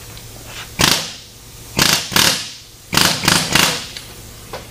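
Air-powered hand tool on a shop air hose, worked against a metal part held in a bench vise. It runs in several short, loud bursts with gaps between them.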